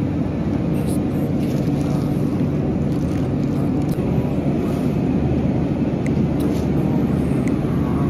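Steady low rumble of supermarket background noise, with a few faint clicks and rustles of produce being handled.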